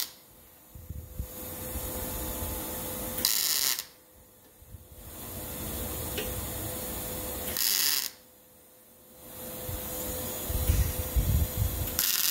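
Arc welder laying tack welds on a sheet-steel patch panel: three short bursts of arc noise, each about half a second and spaced about four seconds apart, with a steady hum between them.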